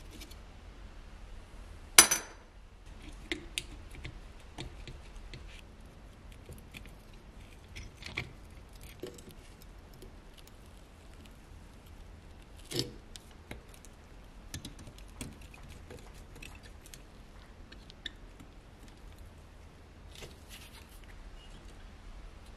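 Pliers on thin rusty tinplate: scattered small metal clicks and scrapes as the tabs holding a toy scooter's frame are bent straight. A sharp metallic clink stands out about two seconds in, and another near thirteen seconds.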